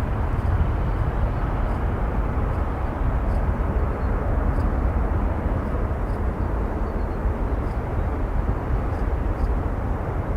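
Boeing 747 jet engines running, heard as a steady deep rumble with no rise or fall.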